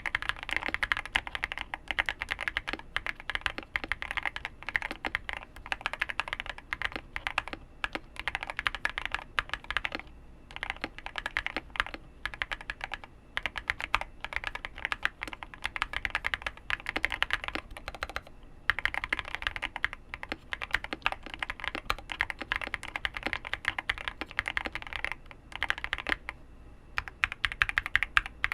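Continuous fast typing on a QK100 gasket-mount mechanical keyboard with hand-lubed Snow Grape linear switches, FR4 plate and full foam: dense, rapid keystrokes in runs, with brief pauses about ten, thirteen, eighteen and twenty-six seconds in.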